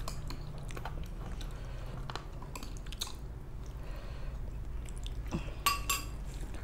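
Close-up eating sounds: chewing and mouth sounds of people eating fried rice and chilli chicken, with scattered small clicks and a couple of sharper clinks near the end.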